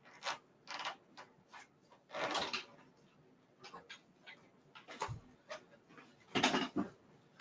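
Wheelchair armrest being unlatched and lifted off a positioning wheelchair frame: a series of metal and plastic clicks, knocks and short rattles, with a dull thump about five seconds in.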